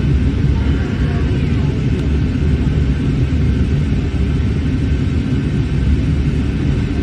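Airliner cabin noise in flight: a loud, steady low rumble of engines and airflow heard from inside the passenger cabin.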